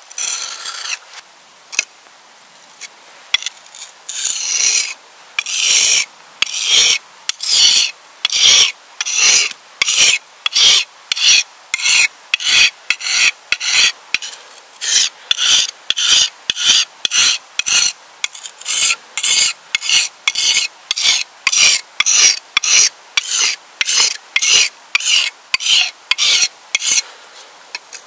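Rhythmic rasping strokes of a hand tool working, about two a second with short gaps between them, faint at first and then loud and steady from about five seconds in.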